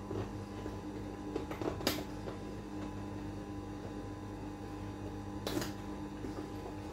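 Steady electric hum of an industrial sewing machine's motor left running while the needle is not stitching. Two short clicks come through, about two seconds in and again about five and a half seconds in.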